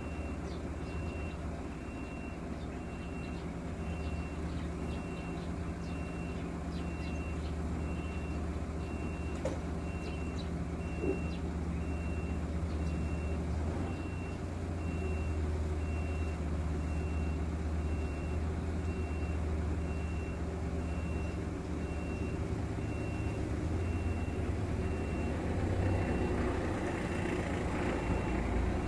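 An engine idling steadily, with a high electronic beep repeating a little faster than once a second throughout. The drone grows slightly louder and busier near the end.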